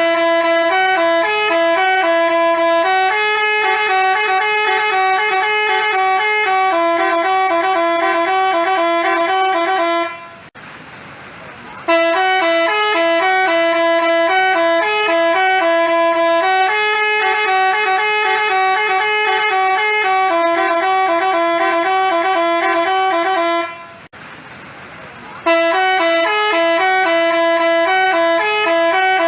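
Telolet basuri multi-tone horn playing a tune in quick stepping notes, loud and continuous. It breaks off twice for under two seconds before starting again.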